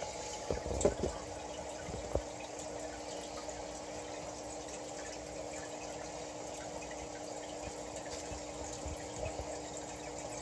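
Steady running of an aquarium filter and air bubbler: a constant low hum under a trickling, bubbling water sound. A few light knocks in the first two seconds as decor is set into a plastic tote.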